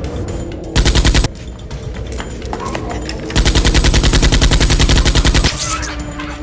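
Two bursts of rapid automatic gunfire: a short burst about a second in and a longer one of about two seconds in the middle.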